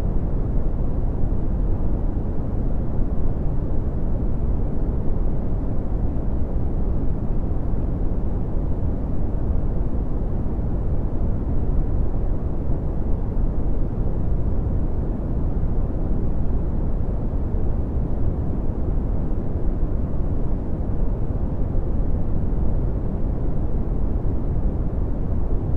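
Red (Brownian) noise: a steady, deep rumbling hiss with its energy weighted toward the low end and little above it, unchanging throughout.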